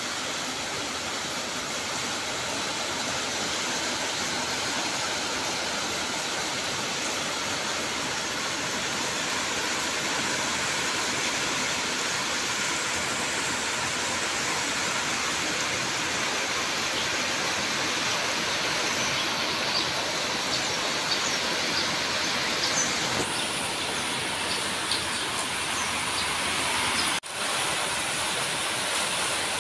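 Rain falling steadily, an even hiss that drops out for an instant near the end, with faint light clicks over the last ten seconds.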